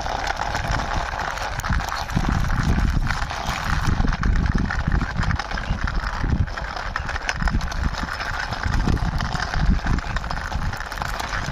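Small plastic wheels of a toy car rolling along the ground as it is pushed by hand, a steady rolling hiss, with wind buffeting the microphone.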